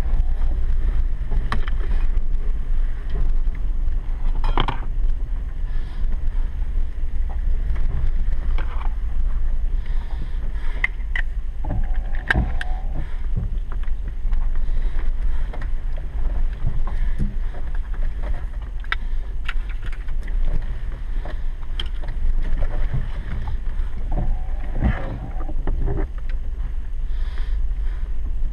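Heard from inside the cab, a Ford F-150 pickup driving on a dirt road: a steady low rumble of engine and tyres, with scattered knocks and rattles as it goes over bumps.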